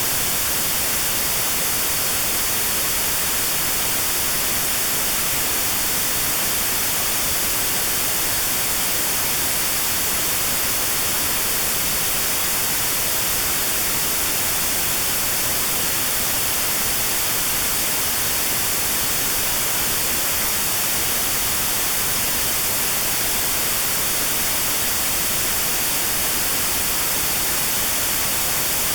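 Steady, unchanging white noise with a narrow band around 4 kHz cut out: notched sound for tinnitus therapy, the hiss heaviest in the treble.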